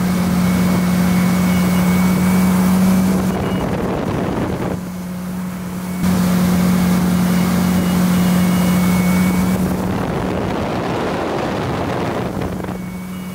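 Ski boat's engine running steadily at towing speed, a constant hum with wind and water rushing past. The sound drops briefly about five seconds in, then comes back.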